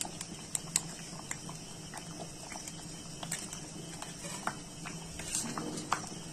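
A spatula stirring thick khichuri in a cast metal kadai, making irregular light clicks and scrapes against the pot over a faint steady hum.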